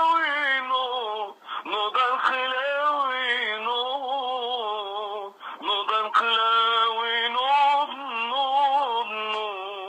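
A voice singing long, wavering held notes with heavy vibrato, breaking off briefly about a second and a half in and again about five and a half seconds in. The sound is thin and tinny.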